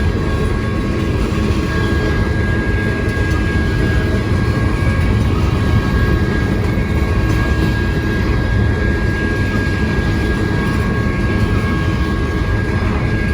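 Freight train's grain cars rolling past on the rails: a steady rumble of steel wheels on track, with a thin, steady high tone running throughout.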